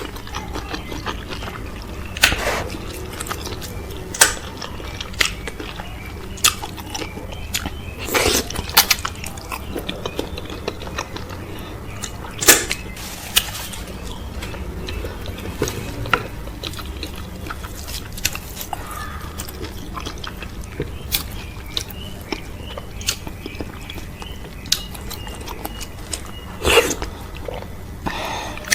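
Close-miked eating: wet chewing, slurping and lip smacks over fufu, okro soup and cow foot, with irregular sharp clicks and a few longer wet slurps, over a steady low hum.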